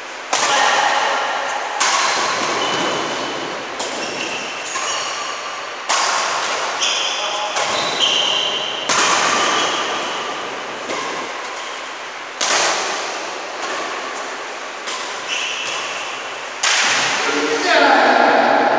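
Badminton rally: rackets strike the shuttlecock about once every one to two seconds, and each hit echoes in the hall. Short high squeaks from shoes on the court floor come between the hits, and a player's voice is heard near the end.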